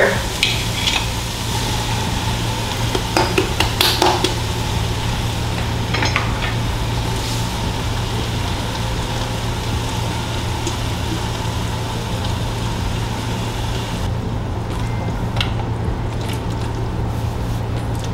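Chicken in tomato sauce and broth sizzling in a pot on the stove as it heats toward a boil, with a few clinks of a utensil against the pot.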